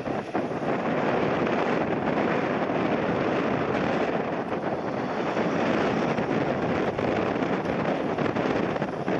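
Steady rushing noise of a jet airliner on its landing approach, mixed with strong crosswind gusting on the microphone.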